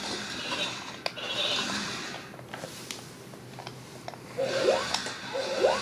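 Remote-control BB-8 toy droid: faint whirring and a few clicks from its drive, then about four seconds in its electronic droid voice, a steady beep broken by two quick rising chirps.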